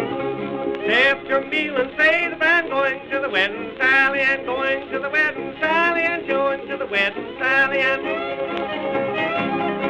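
An early old-time string band record: a man's voice singing a wavering, ornamented line over a fiddle, coming in about a second in and dropping out near the end, leaving the fiddle playing. The sound is thin and dull, with no high end.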